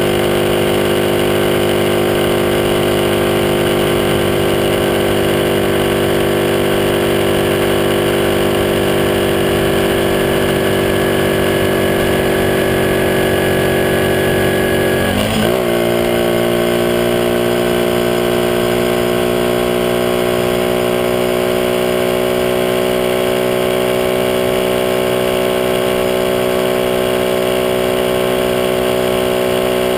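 Honda Monkey's small single-cylinder four-stroke engine running steadily while riding. About halfway through there is a quick gear change: the note dips briefly and then settles at a new steady pitch.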